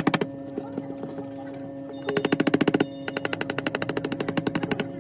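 Rapid clicking in bursts, over a dozen clicks a second, over a steady electrical hum: a short burst at the start, another about two seconds in, and a longer run from about three seconds in until just before the end.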